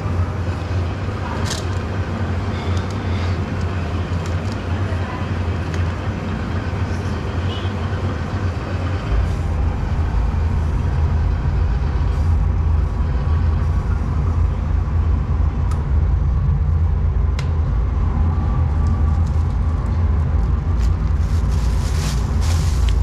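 Steady low machine hum that gets louder and deeper about nine seconds in, with a few sharp clicks. Plastic bag crinkling near the end.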